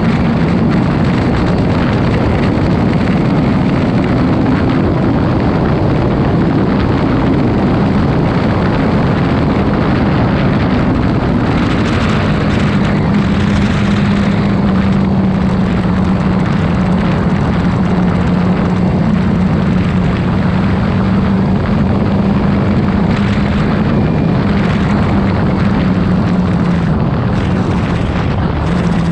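Yamaha MT-25's 250 cc parallel-twin engine running hard at highway speed, around 100 km/h in sixth gear, with heavy wind rush on the microphone. The engine note steps lower about twelve seconds in and again near the end as the bike slows.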